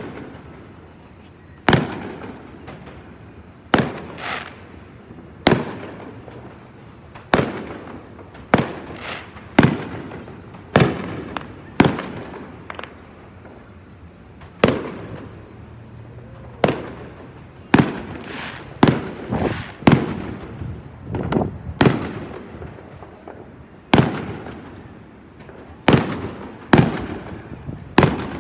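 Aerial fireworks bursting, a sharp bang every second or two, each trailing off in a rolling echo.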